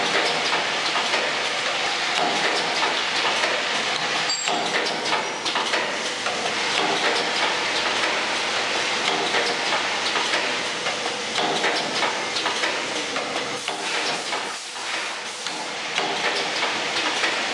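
Automatic clothes peg assembling machine running: its vibratory bowl feeders rattle the peg parts along their tracks while the assembly station makes a steady stream of small clicks and clacks.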